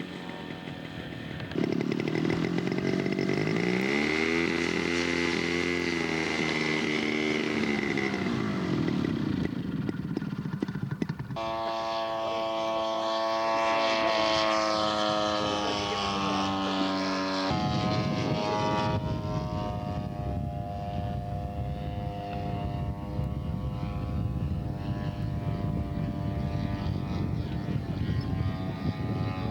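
Radio-controlled scale model airplane engines running, in a few spliced stretches. The engine pitch rises and falls once in the first stretch, then the note changes abruptly about 11 s and again about 17.5 s in, settling to a steady drone.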